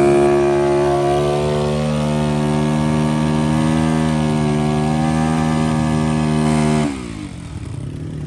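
Crossfire dirt bike's engine held at high, steady revs while the rear wheel spins in loose dirt, then the revs fall away about seven seconds in and it runs on at a lower, quieter note.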